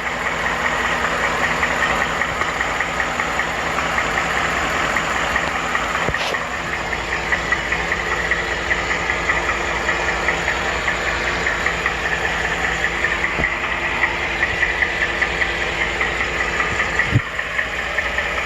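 Ford 5.0 Coyote V8 idling with a fast, steady ticking, the 'typewriter tick' that sounds like a knock low in the engine and that the owner hears as a lower-end knock. A single sharper thump comes near the end.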